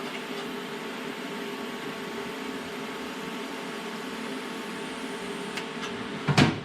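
A steady mechanical hum, with one loud sharp knock near the end.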